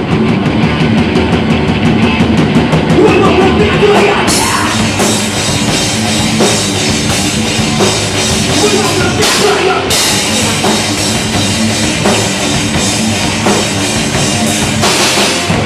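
Live heavy metal band playing an instrumental passage: distorted guitars, bass and a pounding drum kit with crashing cymbals, no vocals.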